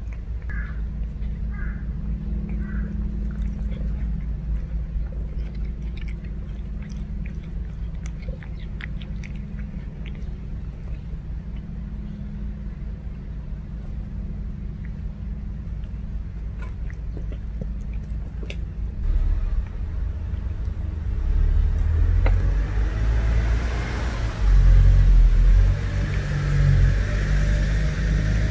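Cats chewing food from bowls, small wet clicks and crunches, over a constant low rumble. In the last third a vehicle engine grows louder and swells.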